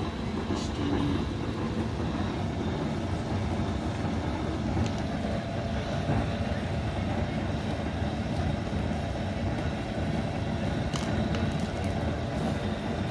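A steady low rumble of background noise, with a few faint light clicks scattered through it.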